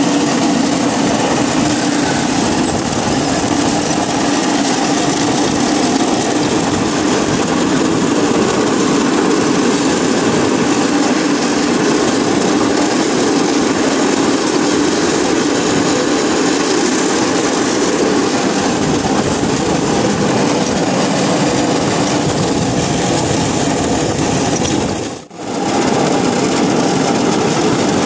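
5-inch gauge coal-fired live-steam model of a Queensland Rail C17 locomotive running along the track: steady steam exhaust and wheels on the rails, heard close up from the riding position. The sound drops out briefly about 25 seconds in.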